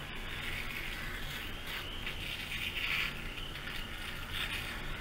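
Bicycle freewheel ticking steadily as the bike coasts.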